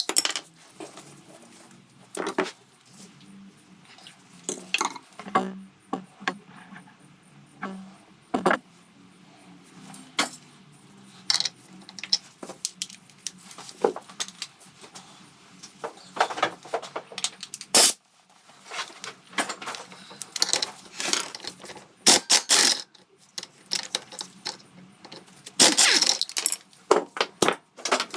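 Metal hand tools and engine parts clinking and clattering during hands-on engine disassembly: a long run of sharp, irregular clicks and knocks, some in quick clusters.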